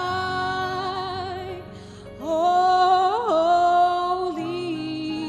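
A woman's voice singing a slow worship song over backing music, holding the word "high" and then a second long note with a short upward bend in the middle.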